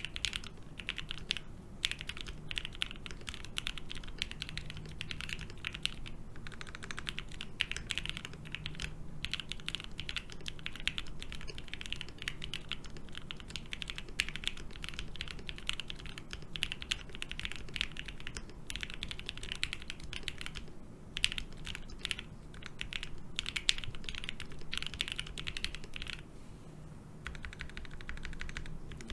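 Custom mechanical keyboard with lubed and filmed Gateron Black Ink linear switches, a polypropylene plate and GMK keycaps, typed on in a steady stream of keystrokes with a few brief pauses.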